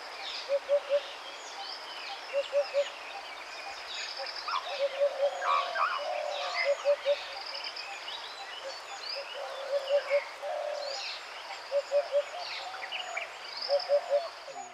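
Birds calling: a low three-note call repeated about every two seconds, over many higher chirps and whistles and a steady background hiss.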